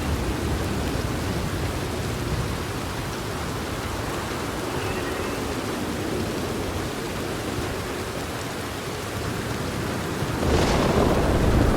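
Steady rain with low thunder rumbling that fades through the middle. Near the end a loud thunderclap breaks in suddenly and keeps rolling.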